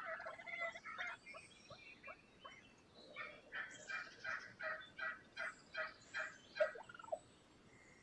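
Wild turkey calling: a few faint notes at first, then from about three seconds in a steady run of short, repeated notes, about three or four a second, that stops about seven seconds in.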